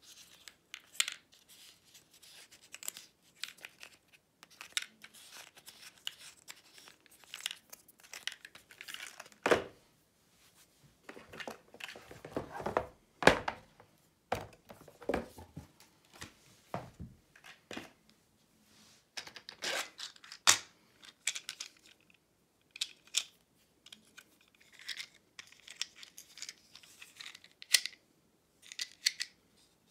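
Board game components being handled: irregular rustling, crinkling and small clicks, with a few louder knocks of pieces set into a plastic insert.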